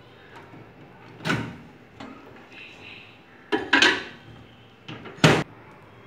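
Microwave oven door being shut and opened again: a few separate knocks and clacks, the loudest a sharp latch click near the end.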